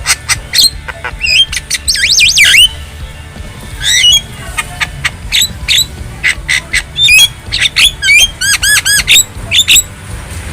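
Javan myna calling: a fast, varied string of harsh squawks and sharp whistled notes, with a quick run of about five repeated arched whistles a little past two-thirds of the way in. A steady low rumble sits underneath.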